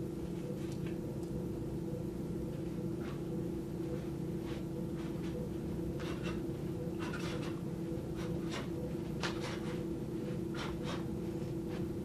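Steady low electrical hum with a few pitched tones held constant throughout, and short soft hissing sounds scattered through it, coming more often in the second half.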